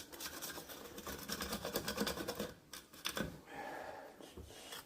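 Rapid small scratches and clicks of a hand tool scraping caked grass from the underside of a Husqvarna Automower's plastic blade disc. The clicks are densest in the first couple of seconds, then thin out.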